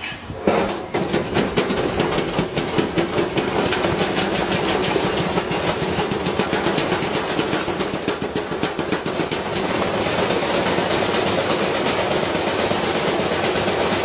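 Front-loading washing machine spinning up with a heavy weight loose in its drum, badly out of balance. Rapid banging starts about half a second in, comes ever faster and merges into a continuous clattering racket as the drum speeds up.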